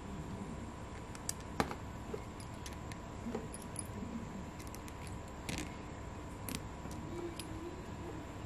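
Light, scattered clicks and taps of a small metal screw, a precision screwdriver and a 3D-printed plastic motor mount being handled and fitted to a small DC motor. The sharpest click comes about a second and a half in, with a small cluster a little past halfway.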